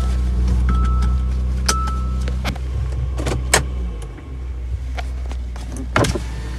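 Hyundai Santa Fe idling with a steady low hum. A warning chime beeps twice in the first couple of seconds, followed by several sharp clicks and rattles.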